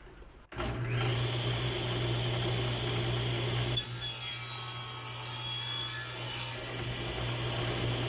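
Table saw switched on about half a second in and running steadily. From about four seconds in, for about three seconds, its blade cuts a groove into a pecan board, adding a harsher, hissing cutting sound over the motor's hum.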